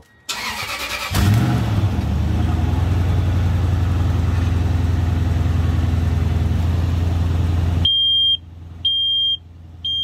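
A truck engine cranks and catches about a second in, then idles steadily. Near the end the engine sound drops away and a Kidde carbon monoxide alarm beeps in even, high-pitched pulses about once a second, three times: it has detected the exhaust gas.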